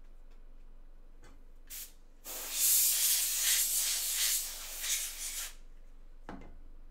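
Hissing spray: a short burst, then a steady spray lasting about three seconds, with a soft knock near the end.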